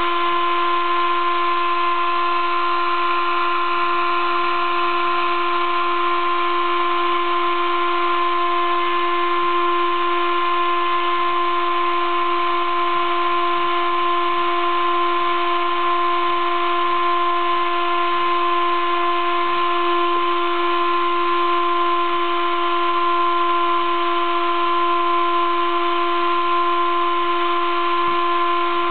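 Sable-2015 desktop CNC mill engraving acrylic with a 20-degree V cutter. The spindle gives a steady high whine over a constant hiss of cutting, unchanging throughout.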